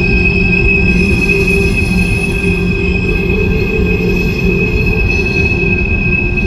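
Wheels of an empty CSX coal train's cars squealing against the rails as they roll through a rock tunnel: a steady high-pitched squeal over a continuous low rumble.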